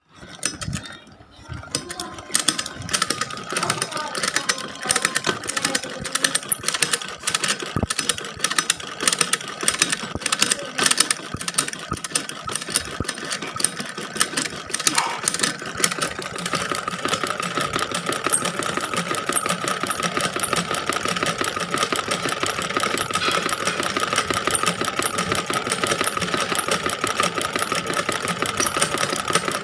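Sewing machine stitching: rapid needle clatter that builds up in the first couple of seconds and comes in uneven spurts, then from about halfway runs continuously at a steady speed with a steady motor whine.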